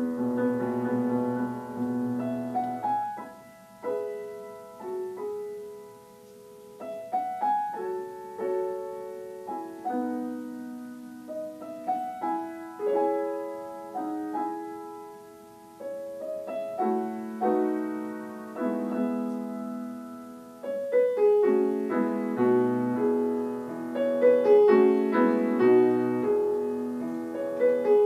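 Solo acoustic piano playing a slow piece. Single notes and chords are struck and left to ring. The playing is soft and sparse in the middle, then grows into fuller, louder chords about two-thirds of the way through.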